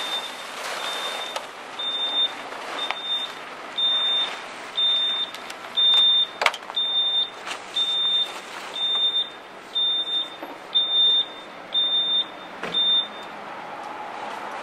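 A vehicle's reversing alarm beeping at a steady high pitch, about one beep every three quarters of a second, stopping a little before the end. Over it come loud bursts of rustling from a snow-covered tarp being pulled off a car.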